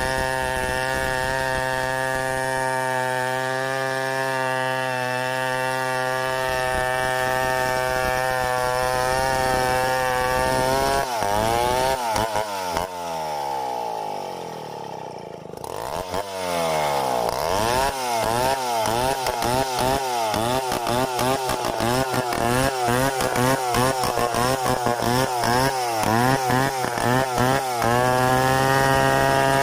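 Stihl 070 two-stroke chainsaw engine running hard at a steady speed, then dropping in speed about eleven seconds in. From about sixteen seconds it revs up and down over and over, then settles back to a steady high speed near the end.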